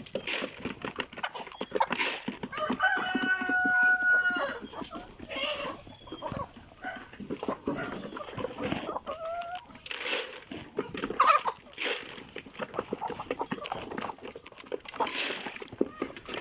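A flock of chickens clucking, with a rooster crowing once about three seconds in. Short calls and scattered sharp ticks run throughout.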